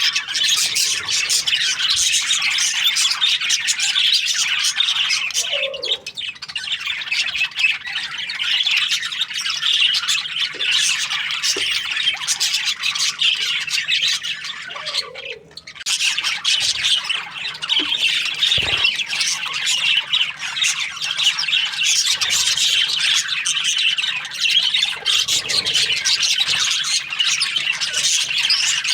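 A colony of budgerigars chirping and chattering, many birds calling at once in a dense, continuous chorus, with a brief lull about halfway through.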